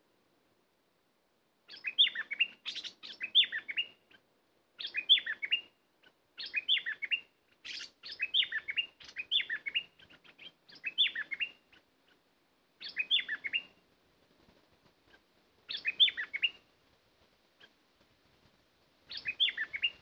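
A bulbul singing: about ten short phrases of quick, bubbly, up-and-down notes, one after another with short gaps, starting about two seconds in.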